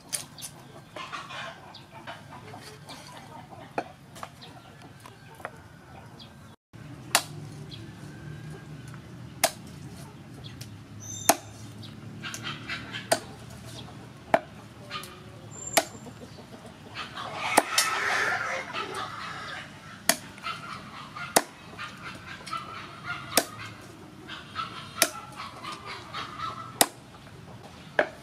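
Meat cleaver chopping raw chicken on a round wooden chopping board: a sharp knock every second or two. Birds call in the background, loudest around the middle.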